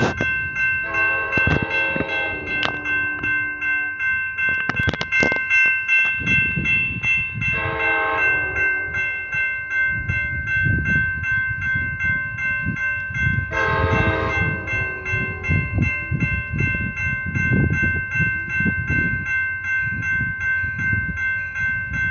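Railroad crossing bell ringing steadily while an approaching Amtrak train sounds its horn three times, each blast a chord of several notes, about a second, seven seconds and thirteen seconds in. A low rumble of the oncoming train grows underneath from about six seconds in.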